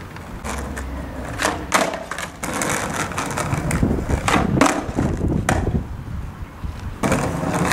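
Skateboard wheels rolling over rough asphalt, broken by several sharp clacks of the board: the tail popping and the deck and wheels slapping down during kickflip attempts.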